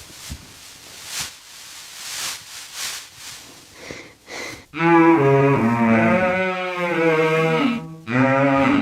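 Cattle mooing: one long, wavering moo begins about five seconds in, after a few seconds of soft hiss, and a second moo starts near the end.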